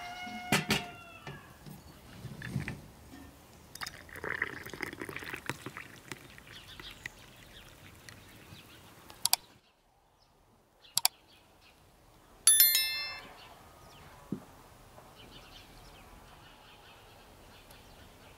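Light ringing clinks of glass tea glasses near the start, then a quiet outdoor background. About halfway through come two sharp clicks and then a bright, ringing bell ding, the loudest sound, from a subscribe-button animation with a mouse click and a notification bell.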